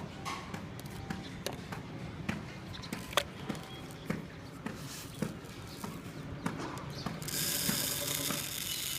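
Loose millet and bajra bird seed being handled and shaken to separate out the empty husks, rattling in quick irregular small ticks and clicks. A steady hiss sets in near the end.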